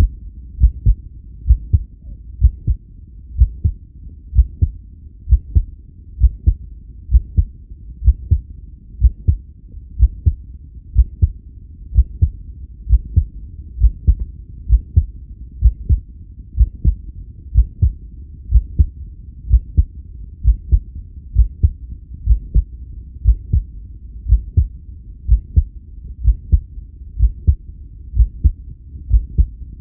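A person's heartbeat during a long breath hold: paired low thuds (lub-dub) repeating steadily at roughly one beat a second.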